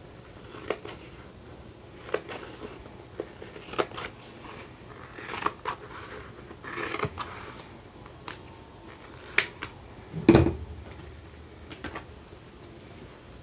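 Scissors snipping through a sheet of faux leather, a handful of separate cuts with rustling of the material between them. A dull thump about ten seconds in is the loudest sound.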